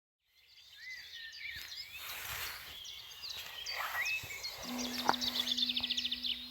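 Dawn chorus: several birds singing and calling over one another, fading in from silence, with a fast trill of rapid repeated notes near the end. A steady low hum comes in about two-thirds of the way through.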